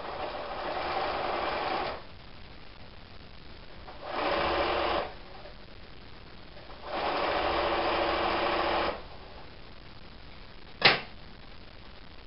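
Domestic electric sewing machine stitching a fabric strip onto a quilt block in three short runs, about two seconds, one second and two seconds long, with pauses between. Near the end comes a single sharp click, the loudest sound.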